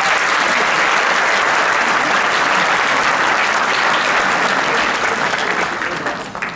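A large seated audience applauding steadily, the clapping fading away near the end.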